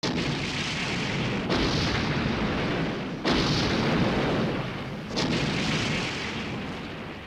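Film sound effect of a run of explosions: four heavy blasts about two seconds apart, each trailing off into a rumble, fading out near the end.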